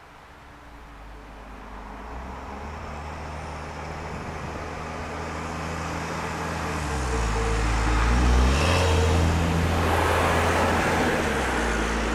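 A motor vehicle approaching and driving past, its engine growing steadily louder and its note dropping in pitch as it passes about eight seconds in.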